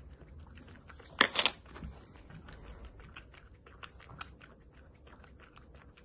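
Small dog licking whipped cream out of a paper cup: quick wet lapping and smacking clicks several times a second, with a louder double smack just over a second in.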